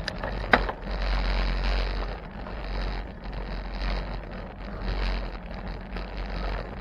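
Wind rushing over the microphone with a low rumble as the bicycle rides along, and one sharp click about half a second in.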